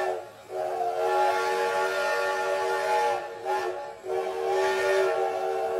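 Steam train whistle sounding a chord in two long blasts, the second starting about four seconds in.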